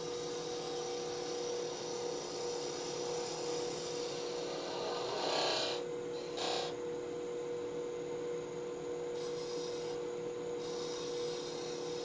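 Wood lathe running with a steady motor hum while a hand-held turning tool cuts the spinning wood with a continuous hissing scrape. The cut gets louder twice, briefly, around five and six and a half seconds in.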